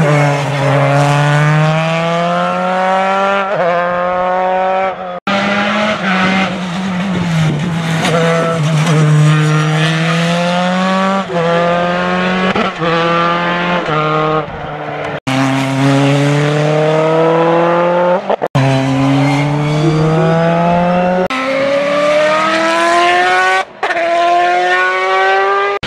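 Single-seater racing car engines revving hard and accelerating up through the gears: pitch rises again and again, dropping briefly at each gear change. The sound breaks off abruptly a few times.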